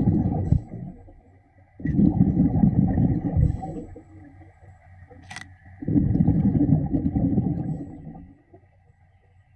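Rushing bursts of underwater bubbles from a diver's breathing: three long exhalations about four seconds apart, with a faint steady high whine underneath and a single sharp click midway.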